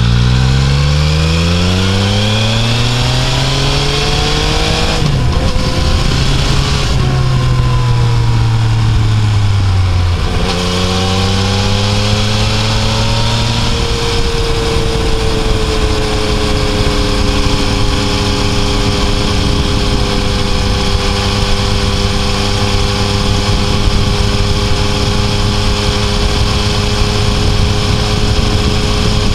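Yamaha Tracer 900's inline three-cylinder engine heard from the bike itself. Revs climb for the first few seconds, there is a gear change about five seconds in, and revs fall as it slows. Around ten seconds in it shifts and pulls again, then settles to a steady engine note for the rest.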